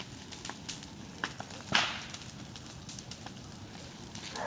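Bonfire crackling: wood burning with scattered sharp snaps and pops, one louder crack a little under two seconds in.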